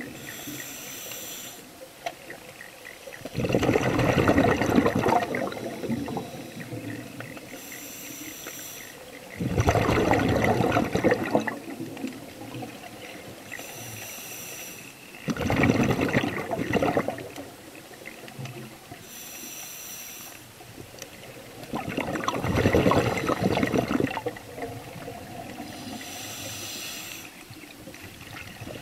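Scuba diver breathing underwater through a regulator: a short hiss on each inhale, then a louder gush of exhaled bubbles. The cycle repeats about every six seconds, four full breaths in all.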